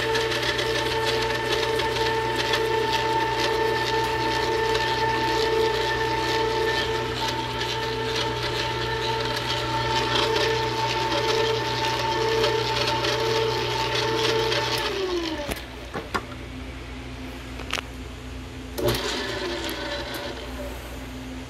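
Hobart N50 stand mixer's motor and gear drive running steadily with a whine while its flat beater churns stiff cookie dough. About 15 seconds in it is switched off and winds down, falling in pitch. A few clicks follow, and about 19 seconds in there is a brief second run that falls away again.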